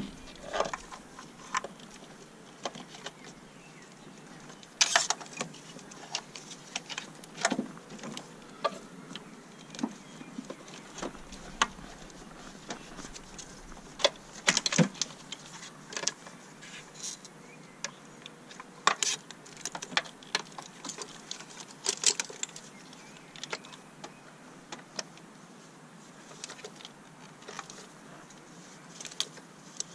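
Irregular clicks, taps and light knocks of small engine parts handled by hand as fuel injectors and their retaining clips are pressed back into place.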